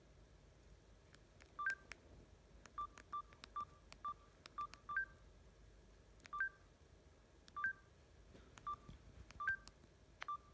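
Samsung GT-E2600 mobile phone keypad: about a dozen short key-press beeps at uneven intervals, most on one pitch and a few a step higher, each with a faint button click.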